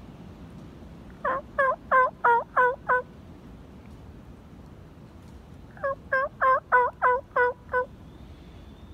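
Two runs of loud turkey yelps, six notes and then seven, evenly spaced at about three a second, a few seconds apart.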